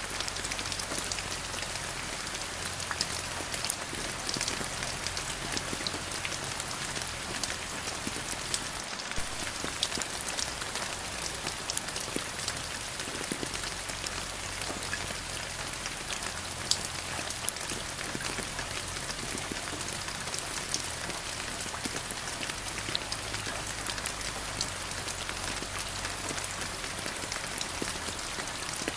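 Steady rain falling on surfaces, a dense even patter with many individual drops ticking sharply.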